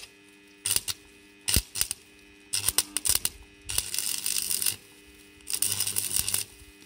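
Stick (electrode) arc welding on a rusty steel motorcycle frame: the rod catches in several short crackles, then burns in two longer spells of crackling arc, the arc hard to get to catch. A steady hum runs underneath.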